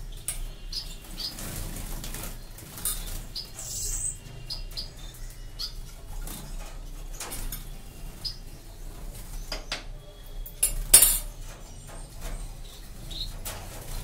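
Caged Bengalese and Gouldian finches giving short scattered chirps and fluttering their wings, with a few light clicks and knocks from the cage, the loudest a sharp click about eleven seconds in.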